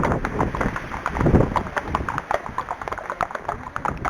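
Hoofbeats of an unshod Arabian horse, a steady clip-clop of about four footfalls a second. Wind buffets the microphone at the start and again about a second in.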